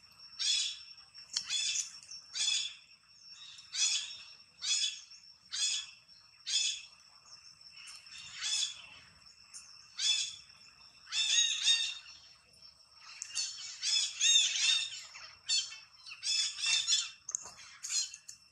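Short, high-pitched animal calls repeated about once a second, running together in quicker clusters in the second half, over a faint steady high whine.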